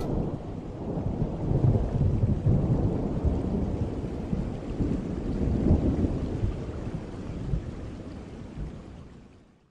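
Rain falling, with a low rumble that swells and ebbs a few times, fading out near the end.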